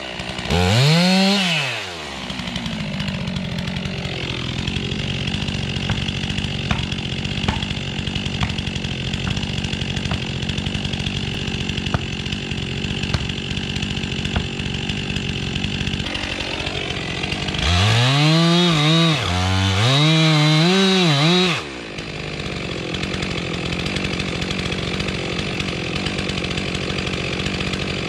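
Stihl two-stroke chainsaw revving up and down a few times, louder in a burst near the start and again a little past the middle, and running steadily at a lower level in between.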